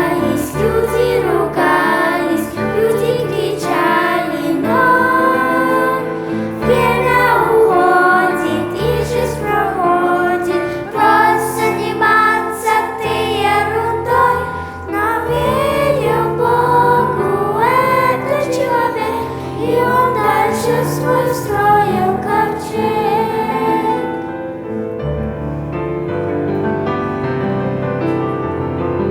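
Children's choir singing a song in Russian with piano accompaniment. The voices stop about 24 seconds in, and the piano plays on alone.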